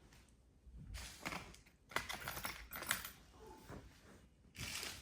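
Hands handling a laptop's loose LCD panel and plastic parts: light clicks, taps and rustling, with a couple of sharper clicks about two and three seconds in.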